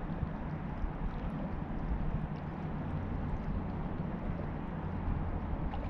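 Wind buffeting the microphone in a steady low rumble, with a few faint light ticks.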